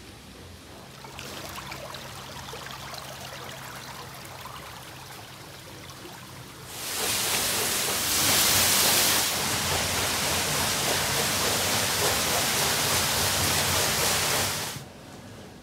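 Water rushing and splashing at a mill water wheel, a steady noise that is quieter at first and grows much louder about seven seconds in, then cuts off near the end.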